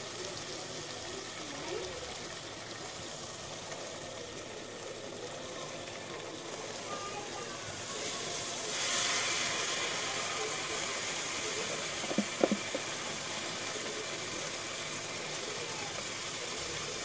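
Chicken masala sizzling in a pressure cooker while soaked rice is tipped in from a bowl. The sizzle swells about eight seconds in as the rice goes in, and a couple of light knocks follow a few seconds later.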